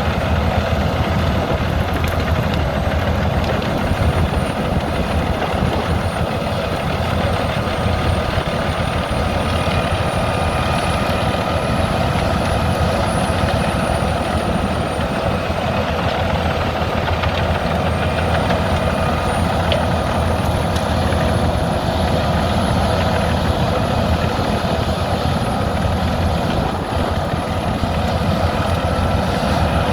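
Albach 700 hp biomass wood chipper running steadily under power, its big engine and drum giving a loud continuous drone with a thin high whine that slowly wavers in pitch.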